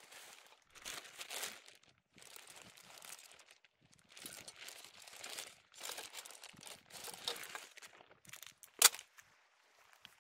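Crinkly rustling of camping gear or packaging being handled, in irregular short bursts, with one sharp click near the end.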